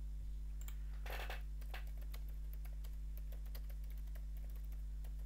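Typing on a computer keyboard: a quick run of key clicks, with a denser flurry about a second in, over a steady low hum.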